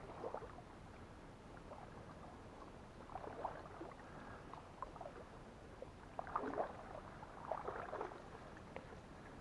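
Faint footsteps wading through shallow marsh water and tall sedge: a few slow clusters of soft splashes and grass rustling, a couple of seconds apart.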